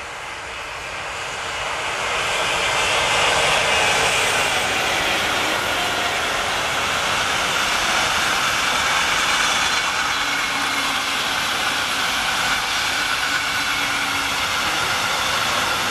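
Container freight train hauled by an SNCF BB 27000 electric locomotive rolling past, its wagons giving steady wheel-on-rail noise. The noise builds over the first few seconds and then holds.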